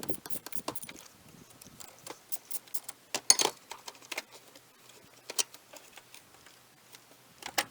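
Scattered sharp clicks and clattering knocks of plastic trim pieces being pried off and handled on a car's interior, the loudest cluster about three seconds in.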